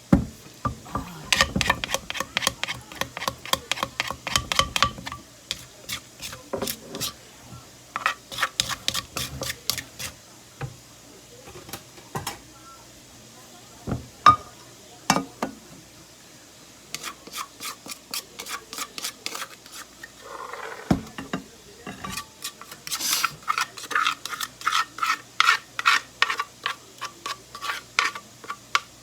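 Utensil clinking and scraping against a dish in quick repeated strokes, about four or five a second, in bursts with pauses, as a papaya salad is stirred and mixed.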